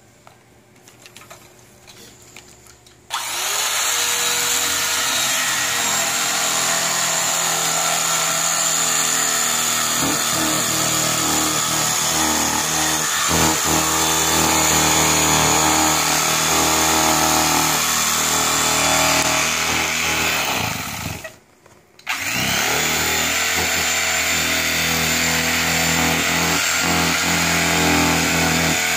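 Small corded electric power tool switched on about three seconds in, spinning up and then running steadily while it works the case's foam; it switches off and winds down around twenty-one seconds in, then starts up again a moment later.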